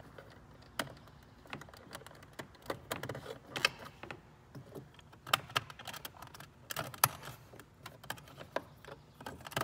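Plastic wiring connectors being handled and pushed into the door panel's switches: scattered sharp plastic clicks and rattles, the loudest about seven seconds in.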